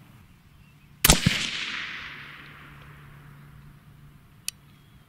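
A single suppressed rifle shot from an AR-15 in .223 Wylde fitted with a Liberty Infiniti X suppressor, about a second in. A second sharp report follows a fraction of a second later, then a long echo fading over about three seconds. A single click sounds near the end.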